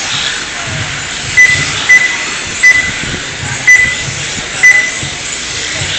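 Five short, high electronic beeps at uneven intervals over steady background noise: an RC race lap-timing system beeping as each car crosses the timing loop.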